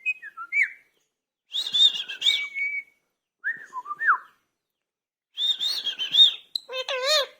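Indian ringneck parrot whistling and chattering in short bursts: high whistled notes and quick pitch glides, with a wavering, voice-like call near the end.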